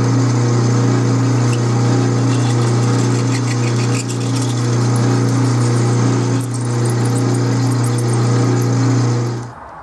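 Atlas 12-inch lathe running with a steady hum while a tap-size twist drill bores into a spinning stainless steel bar; the lathe shuts off near the end.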